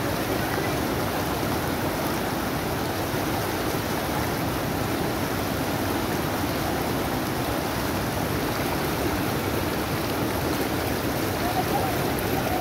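Fast, muddy floodwater rushing steadily over rapids in a stream.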